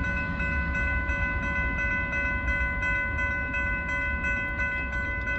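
Railroad crossing warning bell ringing steadily with quick, even strokes while the crossing gates rise after a train has passed, over a low rumble.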